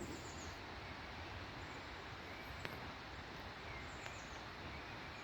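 Steady outdoor background noise on open hillside ground, with a few faint, short bird chirps here and there.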